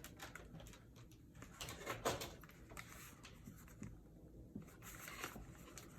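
Light rustling and small clicks of film packs and their packaging being handled, louder about two seconds in and again about five seconds in.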